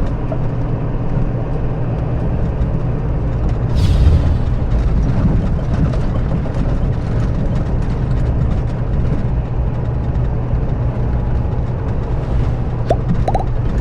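Scania K400B coach's diesel engine running steadily, with a brief hiss about four seconds in and a few short high squeaks near the end.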